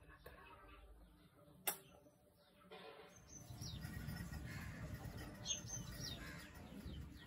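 Faint birds chirping: several short, high chirps, most of them in the second half, over a low background rumble that grows louder about three seconds in. A single sharp click comes about a second and a half in.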